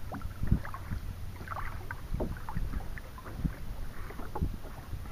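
Water lapping and splashing in small, irregular slaps against the side of a plastic kayak, over a low rumble of wind on the microphone.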